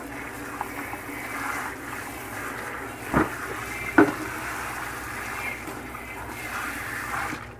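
Kitchen tap running into a stainless steel sink while a frying pan is washed, with two sharp knocks about three and four seconds in. The water stops just before the end.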